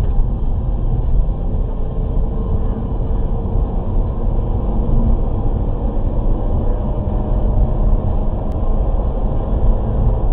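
Steady low rumble of car engine and tyre noise inside the cabin as the car accelerates from about 57 to 80 km/h, with a faint engine tone rising slowly through the middle. It is heard through a dashcam's microphone, which cuts off the high end.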